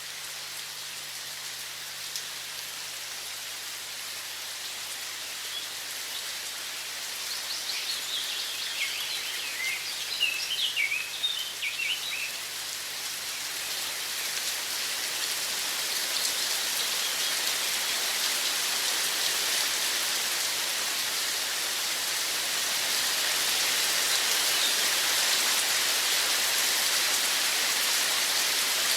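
Steady hiss of running water that grows louder in the second half, with a bird chirping in a quick twittering series from about a quarter to about two fifths of the way in.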